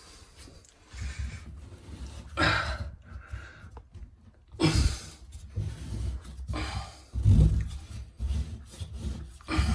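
Irregular scraping and rubbing with low knocks as an old puttied shower drain is worked loose and unscrewed.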